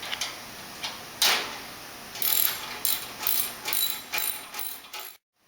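Hand socket ratchet clicking as bolts are tightened down: a few single clicks, then a run of quick repeated ratchet strokes at about two to three a second, which stops abruptly near the end.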